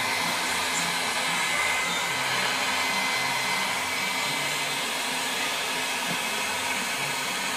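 ENGY electric heat gun running steadily, blowing hot air onto a dented plastic car bumper to soften it so the dent can be pushed out.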